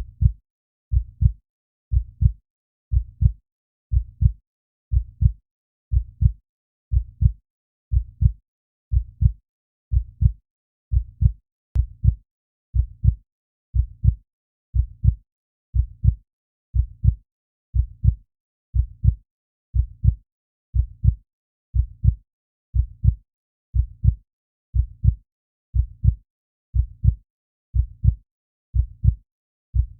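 Heartbeat sound: a steady, even lub-dub, each beat a low, louder thump followed closely by a softer one, about once a second.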